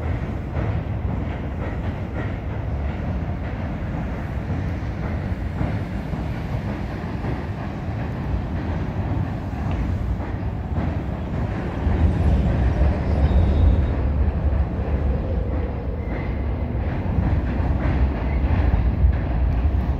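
Tobu Isesaki Line train crossing a steel truss railway bridge: a steady low rumble that grows louder about twelve seconds in.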